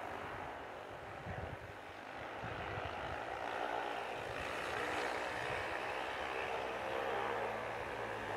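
Snowmobile engine running in the distance, getting steadily louder as the sled climbs the slope.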